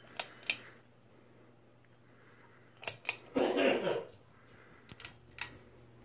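Pull-chain switch of a Westinghouse ceiling fan clicking as the chain is pulled: two clicks near the start, two more around three seconds in and a few near the end. A brief louder noisy sound with a falling tone comes just after the middle.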